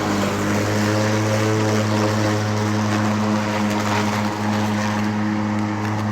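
Mowrator 2WD remote-control battery-electric lawn mower running with its blade spinning: a steady hum with a whirring rush above it.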